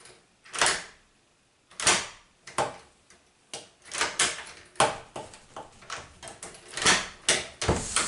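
Newly fitted front door lock being tried out by hand: the handle and lock mechanism clack and click several times as the bolt and latch are worked, ending in louder clacks as the latch releases and the door opens. The lock is working properly.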